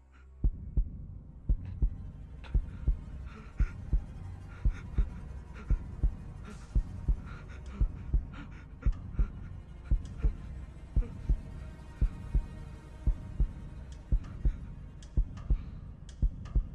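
Heartbeat sound effect: low double thumps, about one lub-dub a second, over a low steady hum.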